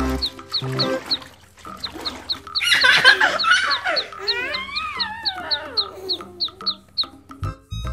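Farm-animal calls: a loud squawking burst about three seconds in, then wavering calls that fall in pitch, over light background music with a quick ticking beat of about four ticks a second.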